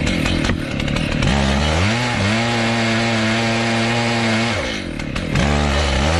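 Two-stroke chainsaw running at high throttle while cutting. Its engine note rises about a second in and holds steady for a few seconds. It breaks up briefly near the end, then comes back.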